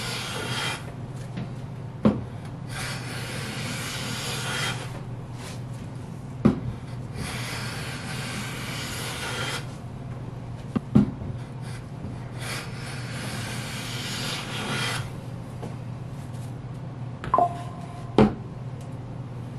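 Veritas low-angle jack plane taking full shavings off a board edge: four strokes, each a steady hiss lasting about two seconds. Sharp knocks fall between the strokes, and two more come near the end, one of them ringing briefly.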